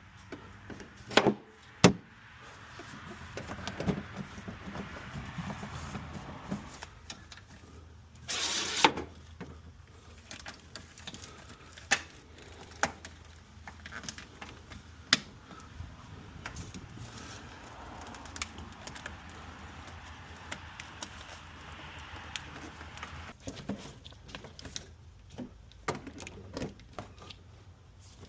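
Tools and metal parts being handled during reassembly: irregular clicks, clanks and jingles, with a brief rattling scrape about eight seconds in.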